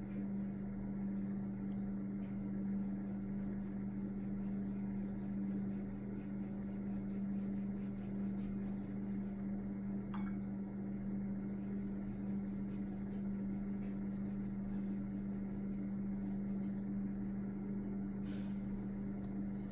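A steady low hum holds at one pitch throughout, with a few faint soft ticks over it.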